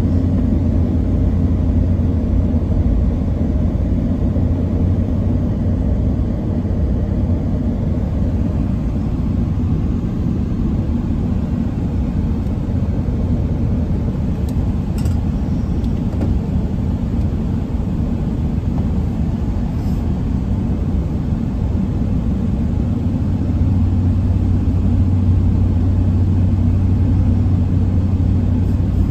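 Steady low rumble of a pickup truck cruising at road speed, heard from inside the cab: engine drone and tyre noise, growing a little louder about three quarters of the way through.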